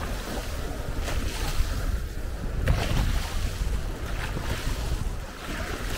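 Wind buffeting the microphone with a steady low rumble over choppy lake water. Waves splash in brief hissing surges, about three seconds in and again near the end.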